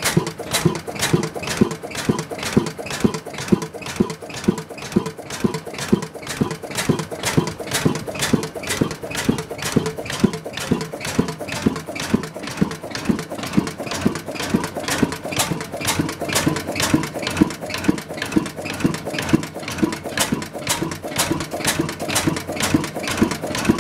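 1937 Ronaldson Tippett Type S single-cylinder sideshaft crude oil engine running at a steady speed, with a regular beat of sharp exhaust knocks several times a second.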